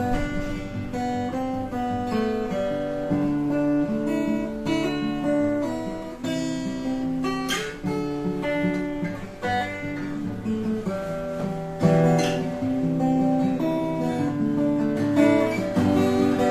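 Clifton A2 Series acoustic guitar played solo, a continuous run of picked notes with an occasional struck chord.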